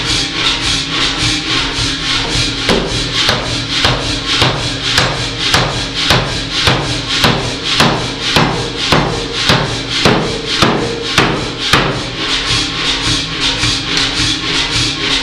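Power hammer striking glowing hot rebar in even blows, about two a second, starting about three seconds in and stopping about three seconds before the end. Background music with a quick shaker rhythm plays throughout.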